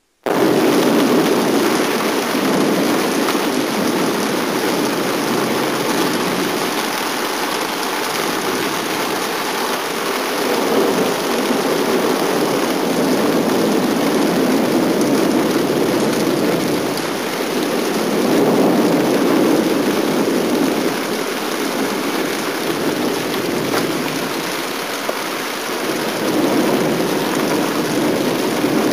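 Steady rain falling during a thunderstorm, with distant thunder rumbling, swelling and fading several times.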